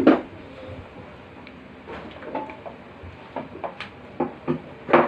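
A spatula and a plastic bowl knocking and scraping against a wok as shredded vegetables are tipped in and stirred. There is a loud clatter at the start, then a run of knocks in the second half, with another loud one near the end.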